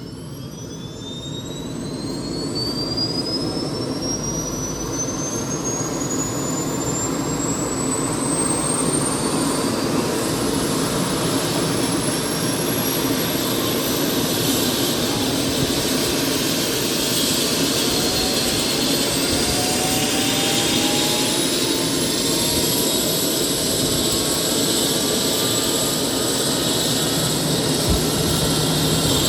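Airbus EC135 helicopter's turbine engines spooling up: a high whine rises steadily in pitch while the running noise grows louder over the first eight seconds or so, then settles into a steady loud run. A second, lower whine climbs slowly in pitch in the latter half.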